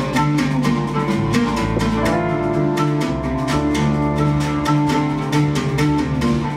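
Live instrumental music: an oud plucked in quick successive notes over long held low notes from the accompanying instruments.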